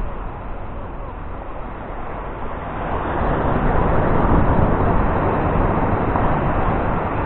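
Ocean surf: a wave breaking and rushing up the beach, swelling about three seconds in and easing slightly near the end, over a steady wash of surf.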